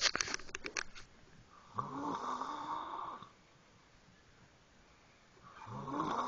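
Snoring: two long snores about four seconds apart, the second still going at the end. A quick run of sharp clicks or taps in the first second.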